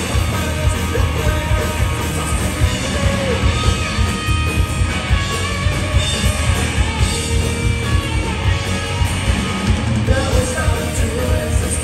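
Punk rock band playing live: distorted electric guitars, bass and a steady, driving drum beat, with the lead vocalist singing over them.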